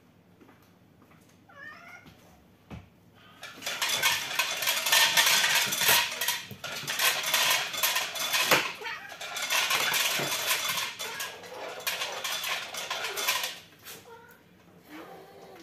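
A cat meows briefly about two seconds in. Then dry kibble clatters and rattles in a pet bowl for about ten seconds as a dog eats from it, with many sharp clicks.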